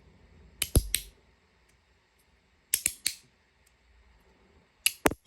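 Magnetic haptic slider fidget (a V3) being snapped back and forth: three quick clusters of sharp clacks, each two or three clicks, about two seconds apart. Close to the ear they measure about 95 dB, pretty consistently.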